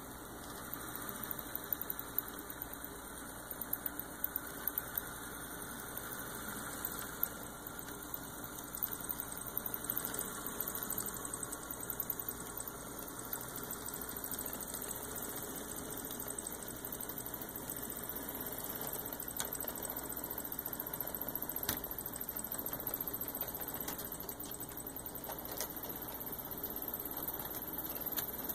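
Two model GP40-2 diesel locomotives pulling a short model freight train along layout track: a steady running hum with many irregular clicks of wheels over the rail joints and turnouts.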